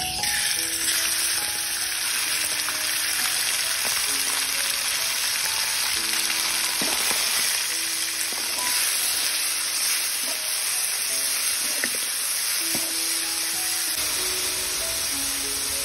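Food frying in hot oil, a steady loud sizzle that starts suddenly as it goes into the pan, with a few scattered clicks of stirring.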